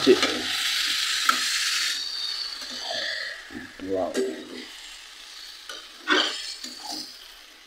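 Pre-boiled wet leafy greens sizzling loudly as they hit hot oil in a steel kadai, the sizzle dying down after two to three seconds. Then a steel ladle scrapes and stirs the greens around the pan a few times.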